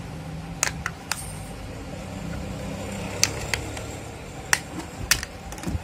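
Snap-on plastic back cover of a Gionee F103 Pro smartphone being prised off by hand: a string of sharp clicks spread over several seconds as its retaining clips come loose, over a steady low hum.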